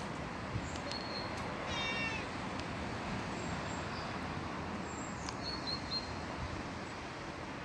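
A black-and-white domestic cat meowing once, briefly, about two seconds in, over steady background noise.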